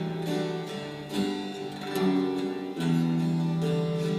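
Acoustic guitar strummed through an instrumental passage of a worship song, its chords changing every second or so, between sung lines.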